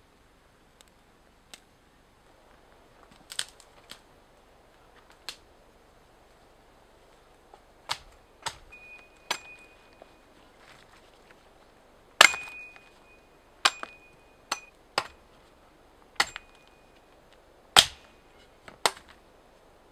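Russian axe chopping through thin branches: about a dozen sharp, irregularly spaced chops, the hardest ones about halfway through and near the end.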